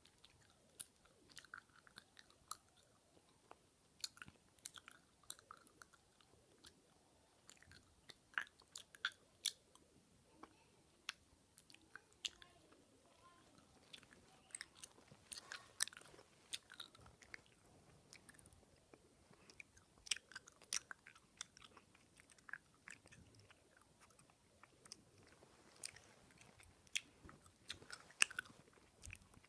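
Chewing gum close to the microphone: wet, irregular mouth clicks and smacks, several a second, with brief squelches.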